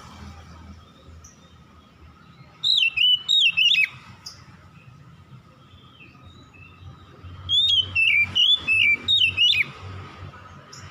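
Oriental magpie-robin (kacer) singing: two loud phrases of clear whistled notes that swoop up and down, a short one about two and a half seconds in and a longer one about seven seconds in.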